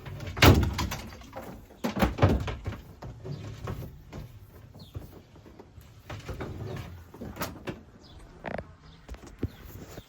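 A series of knocks and thuds from handling and moving about inside a van, the loudest about half a second in, another pair around two seconds in, and lighter knocks later.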